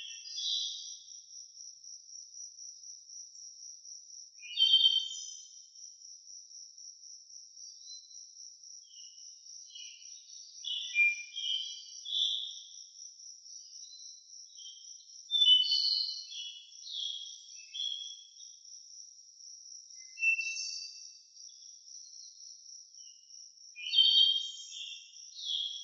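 Songbirds singing short, bright phrases every few seconds, over an insect's steady high-pitched trill.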